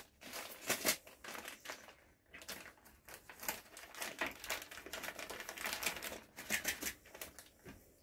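Plastic packaging pouches crinkling and rustling as they are handled and folded, in irregular crackles with a short pause about two seconds in.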